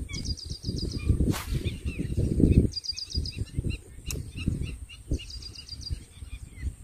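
Wind buffeting the microphone in gusts, with a bird calling three short rapid trills of high ticks, and a single sharp click about four seconds in.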